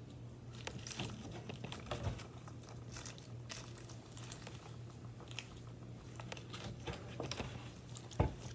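Fidget toys being handled, giving irregular crinkly clicks and crunches, with a sharper knock near the end.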